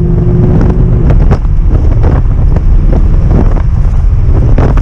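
Audi R8's V10 engine running loudly under way, a heavy low drone, with irregular gusts of wind buffeting the microphone.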